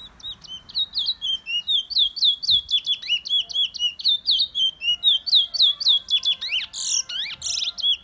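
A caged black songbird singing a fast, loud run of short whistled notes, about four or five a second, with a few harsher, louder notes near the end before it stops.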